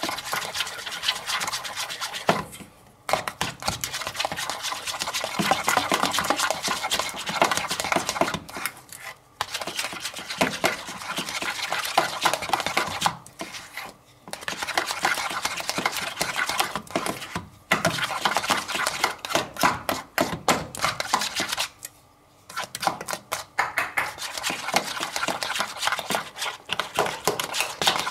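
A utensil stirring a thick mixture of cream cheese, barbecue sauce and ketchup in a bowl: rapid clicking and scraping against the bowl, stopping briefly about five times.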